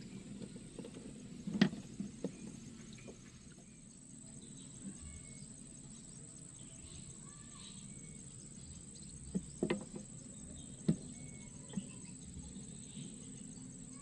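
Rural canal-side ambience: a steady high insect buzz with scattered short bird chirps. A few sharp clicks and knocks, the loudest about one and a half seconds in and a cluster near the end, come from fishing tackle being handled in a wooden boat.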